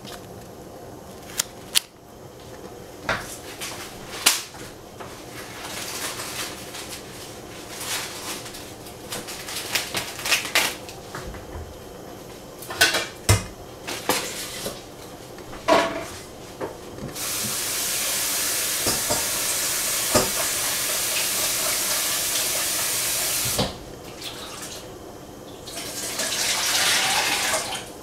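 Dishes and utensils clinking and knocking in a kitchen, then a water tap running steadily for about six seconds before being shut off, and running again for about two seconds near the end.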